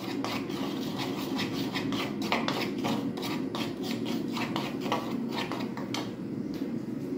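Metal spoon stirring and scraping a dry mix of rice flour and ground spices around a bowl, a quick run of scraping strokes that dies away near the end.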